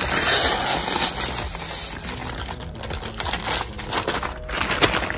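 Foil-lined potato chip bag crinkling and crackling as it is pulled open and handled, loudest in the first second or so.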